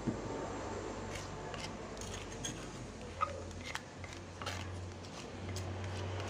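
An orange plastic spatula scraping ground spice paste out of a black stone mortar and onto a metal slotted spatula, giving scattered scrapes and light clicks. A low steady hum runs underneath.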